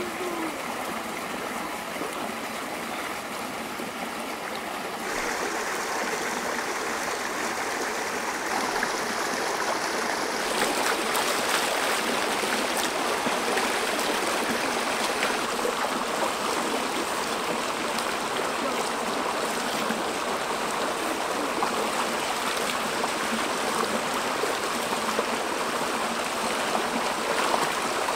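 Shallow stream running over rocks, a steady rushing burble that grows louder in two steps, about five and about ten seconds in.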